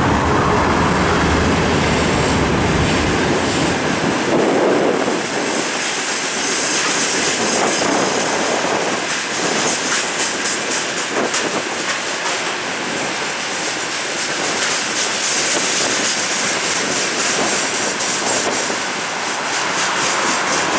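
Freight train wagons rolling past: loaded open gondolas and then tank cars, with a steady rumble and a fast clickety-clack of wheels over rail joints. The low drone of the 2TE25KM diesel locomotive fades out in the first few seconds as it pulls away.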